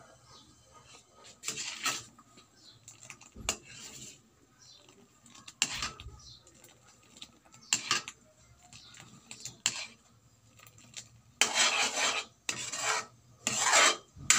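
Metal spoon scraping and stirring a thick topping in a metal wok: a few short, scattered scrapes, then three longer, louder scrapes in quick succession near the end.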